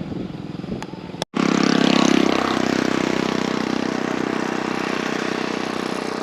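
A small engine running close by, starting abruptly about a second in, loudest shortly after and then easing off slowly, with a fast even pulsing.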